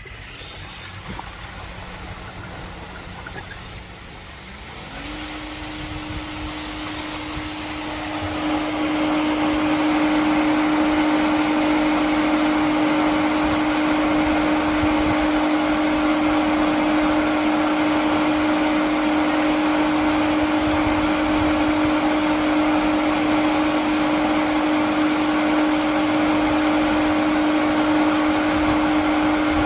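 Pool pump motor speeding up with a rising whine about four to five seconds in, then running at a steady high whine over a rush of water, the filter on its rinse cycle.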